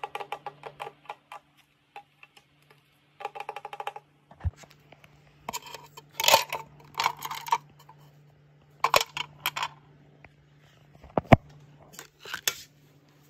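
Hard plastic clicking, rattling and scraping as a clear plastic toy box and a Roblox figure with its small plastic accessories are handled, with one sharp plastic knock about 11 seconds in. A faint steady hum lies underneath.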